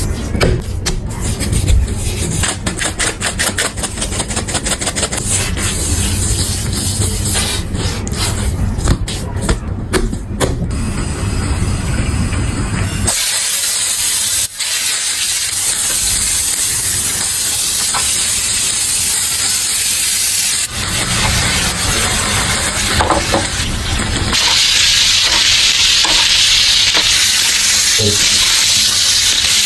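A quick run of knocks and scrapes, then beef steak sizzling in a hot pan: a steady high hiss that gets louder for the last few seconds.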